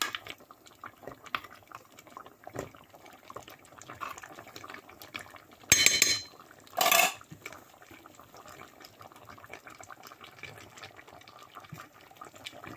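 Spoon stirring and scraping in a pot of thick stew, with light clicks throughout and two louder clanks about six and seven seconds in.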